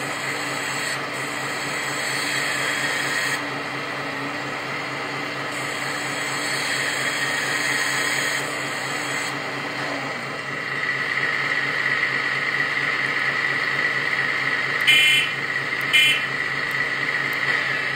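Electric hydraulic pump of a 1/14-scale RC hydraulic Volvo excavator whining steadily while the boom and bucket are worked, its strength rising and falling several times as the load changes. Two brief shrill bursts come near the end.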